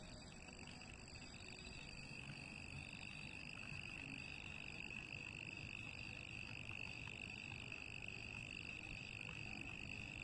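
Faint, steady night chorus: a continuous high trilling that never breaks, over a low background rumble.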